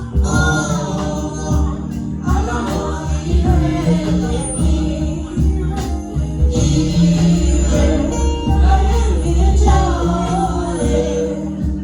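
Children's choir singing a gospel anthem over band accompaniment with strong bass and steady percussion.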